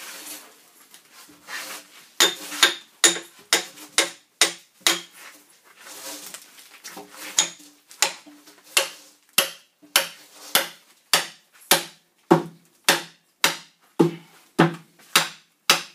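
Axe blade chopping into the side of a log being hewn square: sharp, woody knocks at a steady pace of about two strokes a second, beginning about two seconds in after some quieter shuffling.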